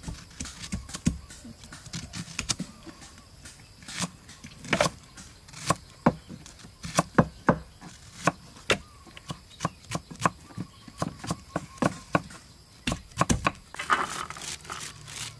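Chef's knife chopping shallots on a thick wooden chopping board: irregular, sharp knocks of the blade hitting the wood. Near the end comes a short rustle as the diced shallots are dropped onto a metal tray.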